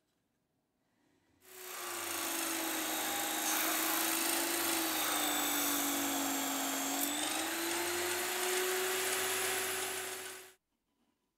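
Electric drill driving a homemade plywood disc sander, with a piece of plywood being sanded against the abrasive disc: a steady motor whine over a sanding hiss. The pitch sags briefly in the middle under load and recovers. The sound starts and stops abruptly.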